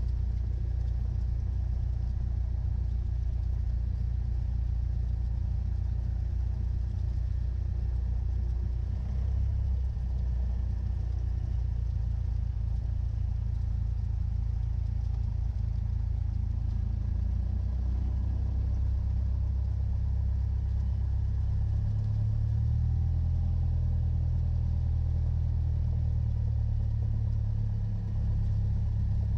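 Cessna 172's piston engine and propeller running steadily at low taxi power, a low drone whose note shifts slightly about two-thirds of the way through.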